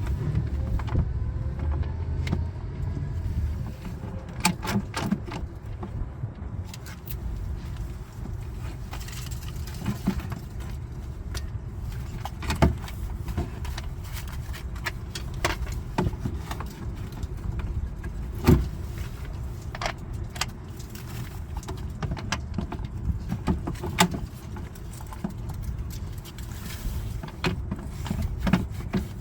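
Scattered metallic clinks and knocks of tools and sockets being handled, a few sharp ones standing out, over a low steady rumble.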